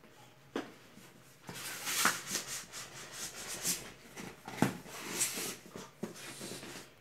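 Cardboard rubbing and scraping as a graphics card's inner box is worked out of its tight-fitting outer sleeve, with a few sharp knocks and taps, the loudest about four and a half seconds in.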